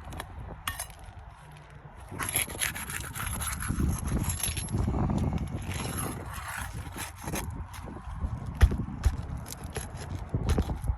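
A pry tool scraping and working under asphalt roof shingles to pull their nails, in rough scraping strokes with scattered clicks and taps.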